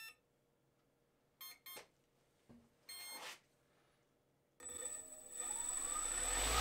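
Brushless motor and its speed controller sounding short electronic beeps: two quick beeps about a second and a half in, then another about three seconds in. Near the end the motor starts and spins up its propeller, a rising whine over a growing rush of air.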